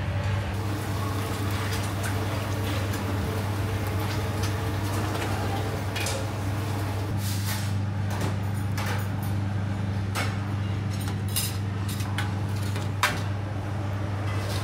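Commercial kitchen noise: a steady low hum of kitchen equipment. From about halfway on, scattered clicks and clatters of metal and dishes come through it, the sharpest one near the end.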